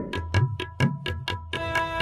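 Background music with a fast, steady beat: quick ticking percussion over a pulsing low bass line.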